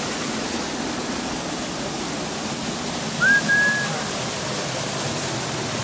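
Small waterfall plunging into a shallow rocky pool: a steady rush of falling water. About three seconds in, a short high note rises and then holds for about half a second.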